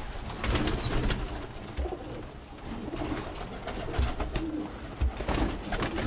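Domestic pigeons cooing in a loft, low repeated coos, with a few short flurries of wing flaps as birds take off and land.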